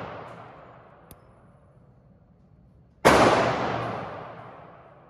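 A gunshot's echo dying away, then a single loud gunshot about three seconds in that echoes for about two seconds.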